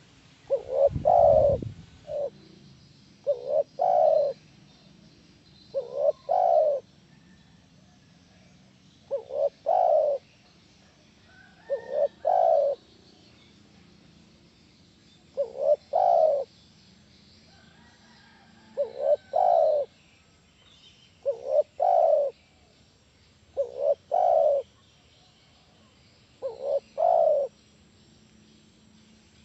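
Spotted dove cooing, a phrase about every two to three seconds, each a short coo followed by a longer one. A low thump sounds about a second in.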